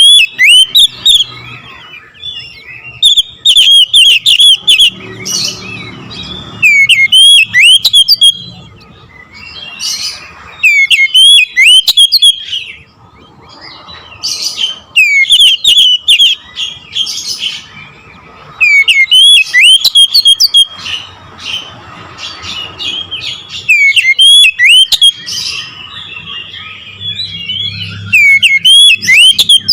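Oriental magpie-robin (kacer) singing loudly: bursts of rapid whistled phrases with sharp sweeping notes, coming in clusters every few seconds.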